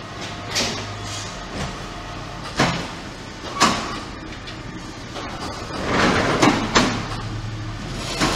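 QT6-15 automatic concrete block-making machine running: a steady hum with sharp metallic clanks about once a second, then a burst of rattling and clatter near the end.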